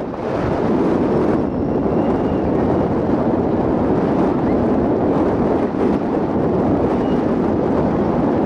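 Steady wind rumble buffeting the microphone.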